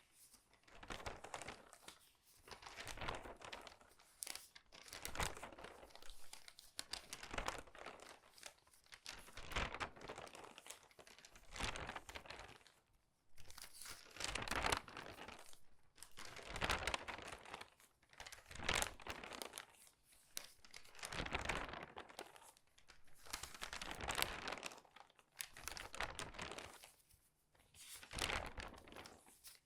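Crinkled newspaper pages being turned quickly one after another, each turn a loud crinkling rustle of the paper, coming about every two seconds.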